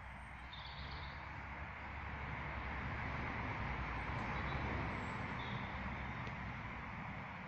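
A road vehicle passing by: engine hum and tyre noise swell to a peak about four to five seconds in, then fade away. A few short bird chirps sound over it.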